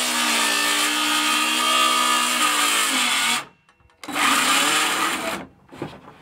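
DeWalt DCS391 20-volt cordless circular saw cutting one-inch rough-sawn lumber, the motor whining under load. It stops abruptly about three seconds in, runs again for about a second and a half, then stops again. The wet board is pinching the blade and binding the cut.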